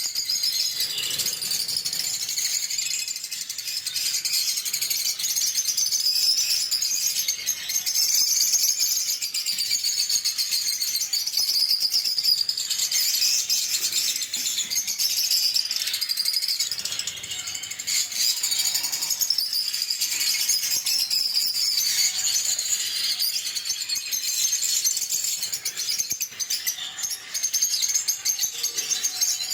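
A group of lovebirds chirping together in a continuous, high-pitched chatter.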